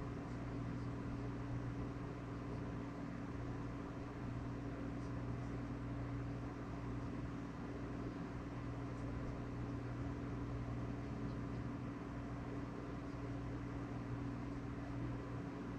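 Steady low mechanical hum over a soft hiss.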